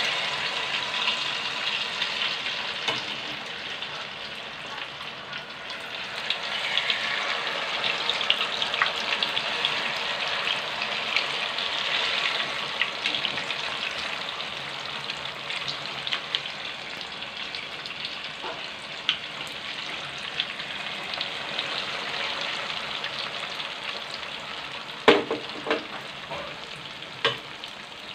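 Turon (banana rolls in lumpia wrappers) deep-frying in hot oil in a wok: a steady, dense sizzle and crackle that slowly dies down. A few sharp knocks sound near the end.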